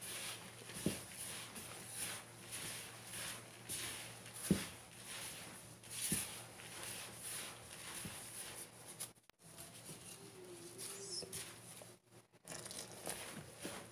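Plastic-gloved hand rubbing and tossing dry wheat flour with chopped fenugreek leaves in a plastic bowl: repeated soft rustling and scraping strokes, with a few light knocks against the bowl.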